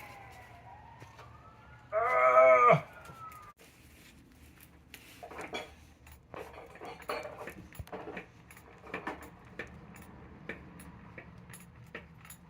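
An emergency-vehicle siren wails with slowly gliding pitch, and a loud horn-like blast sounds briefly about two seconds in. After a sudden cut, a run of light clinks and clatters follows.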